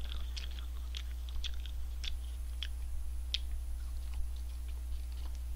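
A person chewing food with the mouth closed: scattered soft clicks and smacks from the mouth, about one every half second to second, over a steady low hum.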